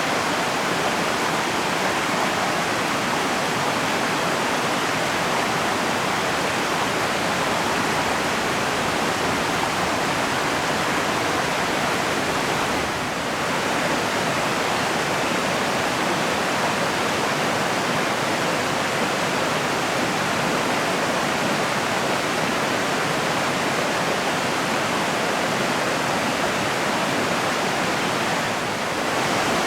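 Mountain river flowing, a steady rush of water that dips briefly twice, about halfway through and near the end.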